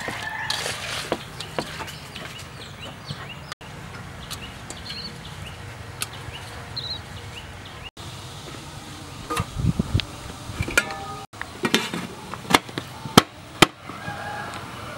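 Wet squelching of chicken pieces being mixed by hand in an aluminium bowl, then a run of sharp metallic clanks and knocks as an aluminium steamer tray and its domed lid are set in place, the loudest strikes near the end. A few faint bird calls in the background.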